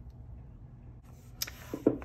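Quiet room tone with a low hum, broken by one sharp click about one and a half seconds in as printed paper pattern cards are handled.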